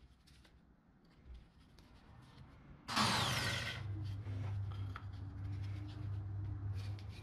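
Electric drill in a drill stand switched on about three seconds in: a sudden loud start, then a steady motor hum. Before that there are only faint handling clicks.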